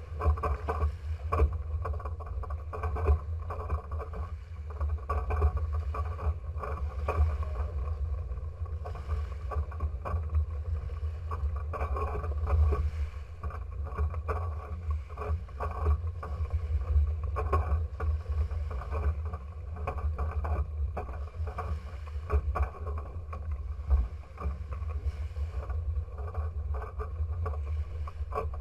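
Small waves washing and splashing against a beached trimaran's hull right at the microphone, over a heavy low rumble.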